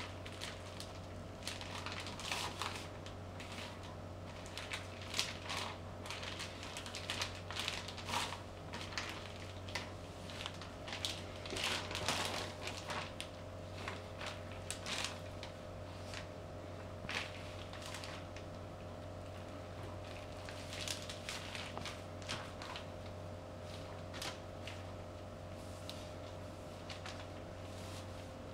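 Flip-flop soles stepping on and crushing cream puffs spread on a plastic sheet: irregular squishing crunches and plastic crinkling in clusters of steps, thinning out in the last few seconds. A steady low hum runs underneath.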